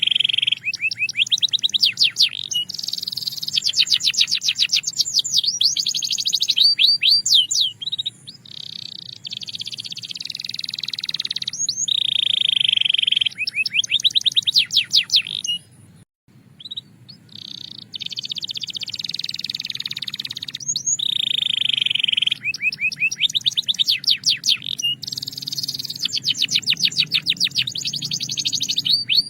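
A Belgian canary singing a long song: rapid rolling trills alternate with held, clear whistled notes, with a short break about halfway through.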